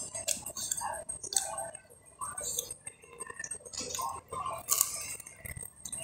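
Close-up eating sounds: biting into and chewing fried catfish (lele goreng), with irregular short crackles and wet mouth smacks.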